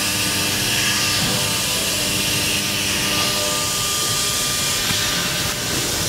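Haas CNC vertical mill running a facing cycle behind its closed doors: a steady whir and hiss with faint steady tones.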